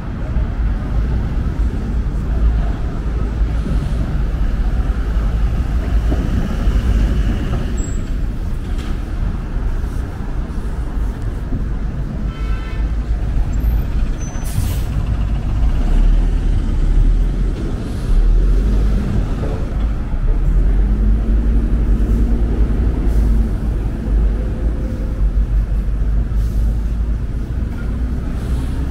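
Steady low rumble of city traffic. A city bus passes close by about halfway through, with a short hiss of its air brakes, and an engine rises in pitch a few seconds later as a vehicle pulls away.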